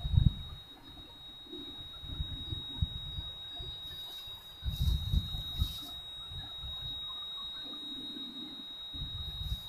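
Wind buffeting the microphone in low rumbling gusts, loudest about five seconds in and again near the end, over a steady high-pitched whine.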